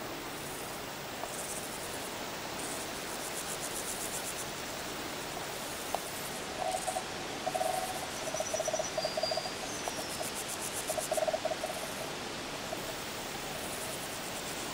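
Rural outdoor ambience: a steady hiss with high, rapidly pulsed chirping throughout. From about six seconds in come several short trains of lower, rapid pulsed calls.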